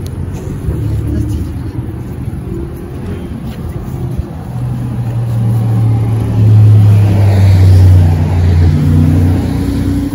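Motor traffic passing close by: a low engine drone swells from about four seconds in, is loudest around seven to eight seconds, and fades shortly before the end.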